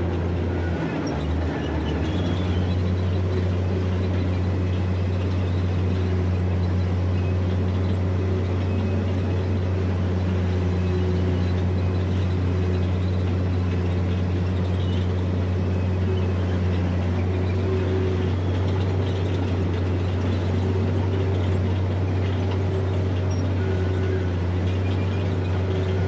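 Bulldozer's diesel engine running steadily with a constant low drone, wavering briefly about a second in.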